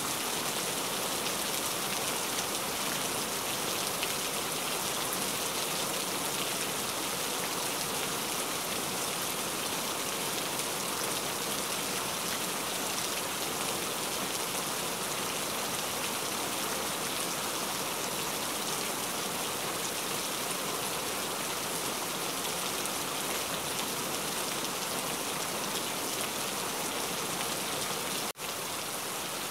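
Heavy rain falling steadily as a dense, even hiss. It cuts out for an instant near the end.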